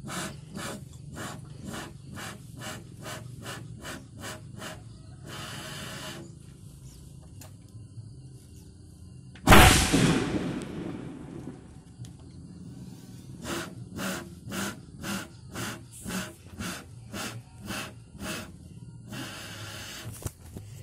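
Short puffs of breath blown into a bamboo cannon's touch hole, about two or three a second, then one loud boom of the bamboo cannon firing about halfway through, dying away over a second or two; the rhythmic puffing starts again afterwards.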